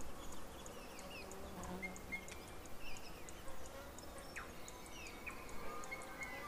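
Night meadow soundscape: an insect chirping in a steady rhythm of high ticks, about three a second, with short scattered bird calls gliding in pitch over a faint low hum.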